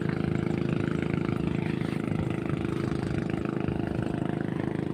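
Small boat engine running steadily at low speed, an even, pulsing hum.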